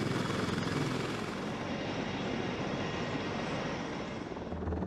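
Sikorsky CH-53K King Stallion heavy-lift helicopter running on the ground, its engines and turning rotors giving a steady rushing noise.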